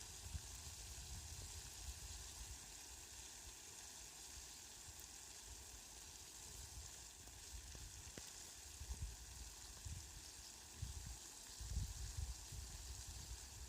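Rain falling, a faint steady hiss, with low irregular rumbles that grow stronger in the last few seconds.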